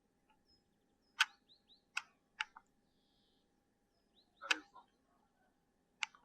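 Five sharp clicks at irregular intervals, the two loudest about a second in and about four and a half seconds in, over a faint steady hum.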